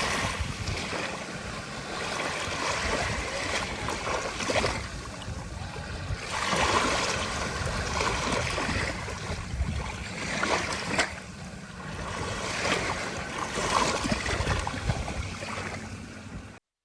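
Sea waves breaking and washing up a beach, the rush swelling and falling away every few seconds. It cuts off abruptly near the end.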